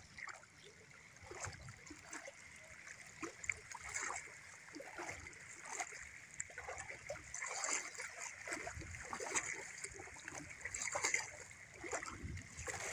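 Feet wading through shallow seawater, with irregular splashes and sloshing from steady walking steps.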